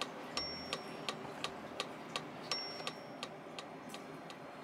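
Background music with a ticking, clock-like beat of about three ticks a second and a brief high chime-like tone about every two seconds; the ticks grow fainter in the second half.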